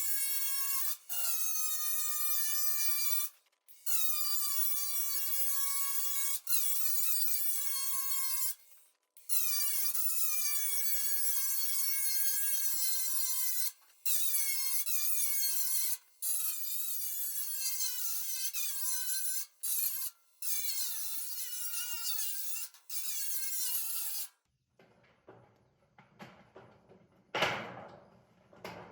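A power tool cutting, its high motor whine sagging in pitch under load and recovering, in a string of short takes that break off abruptly. Near the end come quieter knocks and rattles of material being handled.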